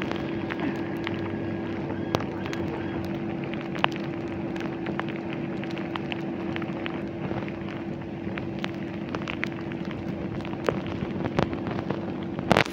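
A steady low hum under a noisy hiss, with many light crackles and ticks scattered through it and a sharper click near the end.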